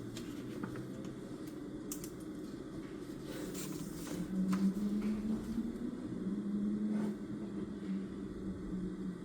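Room tone of a quiet study desk: a steady low hum, joined about four seconds in by a wavering low drone, with a few faint clicks of desk work such as a pen or paper.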